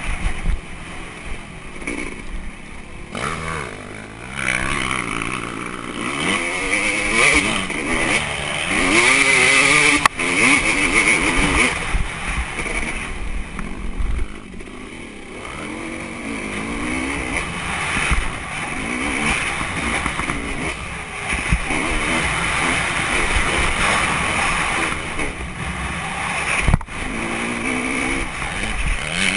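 Dirt bike engine revving up and down repeatedly while riding a motocross track, with a steady rushing noise over the mounted GoPro's microphone. Two sharp knocks come through, one about ten seconds in and one near the end.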